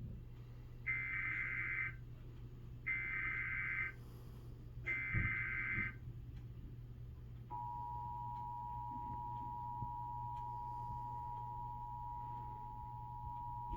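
Emergency Alert System weekly test tones: three one-second bursts of the shrill digital SAME header, a second apart, then from about halfway in the steady two-pitch EAS attention tone, which holds to the end.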